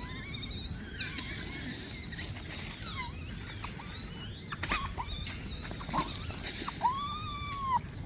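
Monkeys squealing: a run of short, high-pitched squeaky calls that sweep up and down in pitch, ending with a longer rising-and-falling call near the end.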